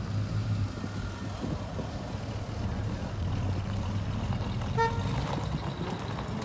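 A car engine running steadily, with a single short horn toot about five seconds in.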